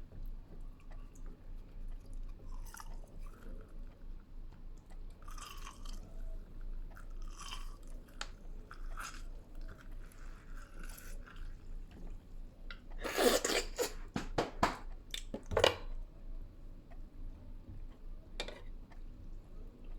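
A lemon half being squeezed and pushed down into a jug by hand: soft wet crunching and squishing, with a run of sharper knocks a little past the middle.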